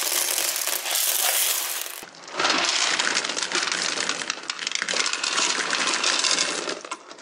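Many small hard beads pouring out of a plastic toy truck trailer and clattering onto a tabletop, a dense rattle of clicks. It breaks off about two seconds in and starts again half a second later.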